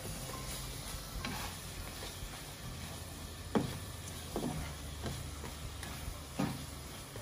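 Plastic slotted spatula scraping and knocking in a nonstick frying pan as potato chunks are stirred through palm sugar syrup, with a low sizzle underneath. The strokes come every second or so, the sharpest knock a little past the middle.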